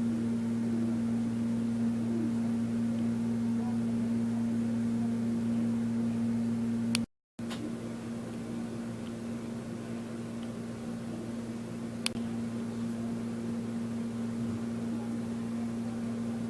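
1984 Robeson 20-inch box fan with a McMillan motor running: a steady electric motor hum over the rush of air from the blades. The sound breaks off briefly about seven seconds in, then resumes a little quieter with a weaker hum.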